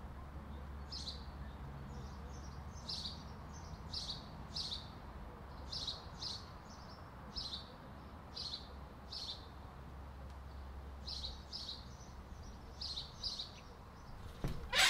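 A small bird chirping, short high chirps repeated roughly twice a second, over a steady low hum. Right at the end a loud squealing sound begins.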